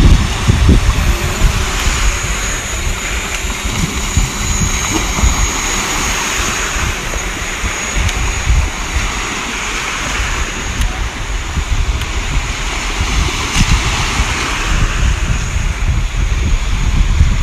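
Wind buffeting the microphone in low irregular gusts, over the steady wash of small waves breaking on a sandy shore.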